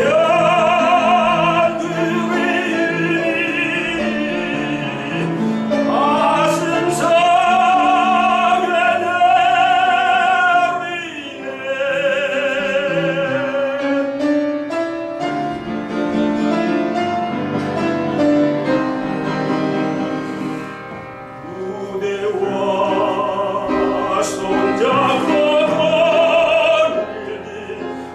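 Male tenor singing a Korean art song in operatic style, holding long notes with strong vibrato, with piano accompaniment. The voice drops away briefly a little past the middle, leaving the piano softer, then returns.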